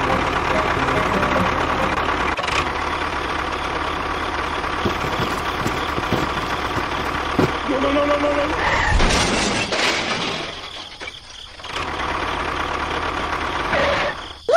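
Small electric motor of a DIY mini tractor running steadily with a thin whine, dropping away briefly about ten seconds in, then running again.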